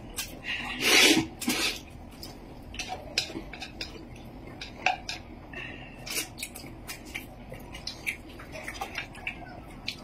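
Chopsticks, spoons and bowls clinking and knocking during a meal: scattered light clicks, with a louder clatter about a second in.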